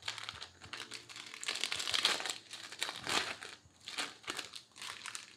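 Thin plastic film around a processed cheese slice crinkling as it is peeled open by hand, in irregular bursts of crackle.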